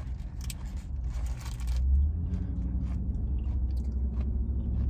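A person chewing a bite of crisp lettuce-wrapped burger close to the microphone, with irregular crunching that is densest in the first two seconds. A steady low hum runs underneath.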